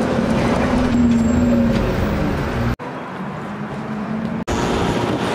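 A city bus running, heard from inside: a steady engine hum under road noise. About three seconds in it cuts abruptly to street traffic noise, then cuts again a second and a half later.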